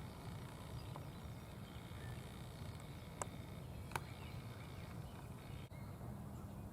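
Quiet outdoor background with a steady low rumble and a few single sharp clicks, about one, three and four seconds in.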